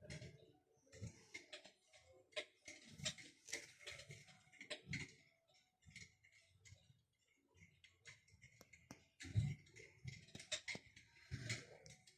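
Electric fireplace's simulated wood-fire crackle: faint, irregular clicks and pops.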